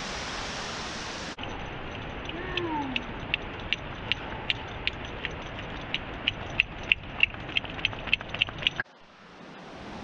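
Steady rush of waterfall water, with a run of irregular sharp clicks, about three a second, over most of it. The rushing drops away suddenly near the end.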